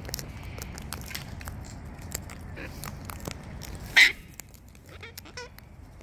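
Cockatoos feeding: scattered sharp clicks and crunches of beaks cracking seed. One louder short burst comes about four seconds in, followed by a faint wavering bird call.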